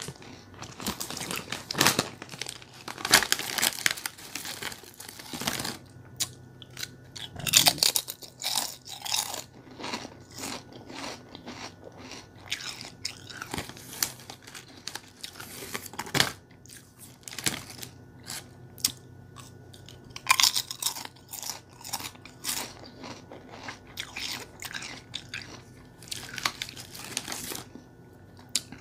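Bubble gum being chewed close to the microphone: irregular smacking and clicking of the mouth, coming in denser runs every several seconds.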